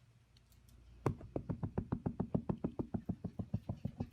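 Background music entering about a second in: a fast, even tapping beat of about six or seven knocks a second.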